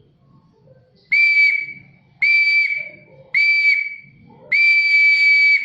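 Fake turbo whistle fitted in an exhaust tailpipe, whistling as the engine is blipped four times. There are three short, steady high whistles about a second apart and a longer one near the end, with the engine running low in between.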